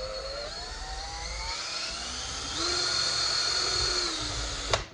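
Cordless drill whining as its bit bores a hole through a steel bottle cap. The pitch climbs over the first couple of seconds, runs louder and higher for about a second and a half in the middle, then sags and stops with a sharp click near the end.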